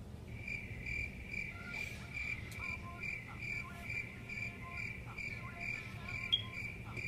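Crickets chirping, a high chirp repeating a little over twice a second that starts about a third of a second in: the comic crickets sound effect for an awkward silence.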